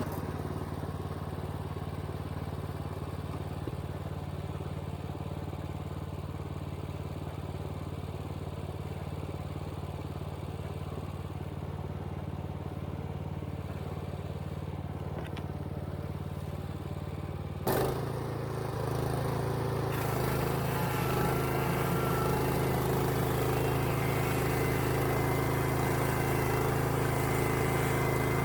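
An engine running steadily. About eighteen seconds in there is a sharp knock, and from about twenty seconds on the engine runs louder.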